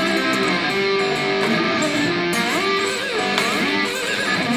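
Electric guitar played with a slide: a quick improvised run of notes that glide up and down between pitches, several held with a wavering slide vibrato.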